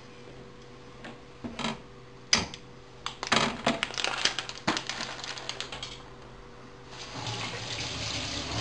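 Clicks from handling at the gas stove, then from about seven seconds a steady hiss as the burner under the frying pan of onions in oil is lit.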